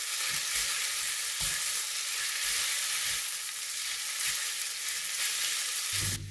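Wide rice noodles sizzling steadily in hot oil in a pan as they are stir-fried, with soft knocks from the stirring strokes every half second or so. The sizzling cuts off suddenly near the end.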